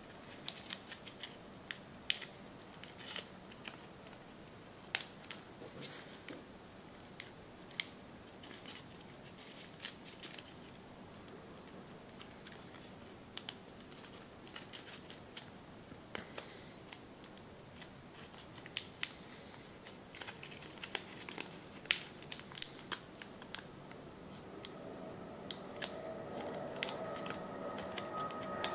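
Folded paper crinkling and crackling in short, irregular clicks as fingers pinch and shape an origami model. Steady musical tones fade in near the end.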